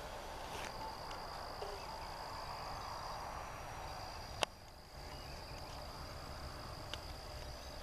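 Field insects trilling steadily on one high note, under the faint rush of the distant ParkZone F4U-1A Corsair RC plane's brushless electric motor and propeller, which swells and fades around three seconds in. A single sharp click sounds about four and a half seconds in.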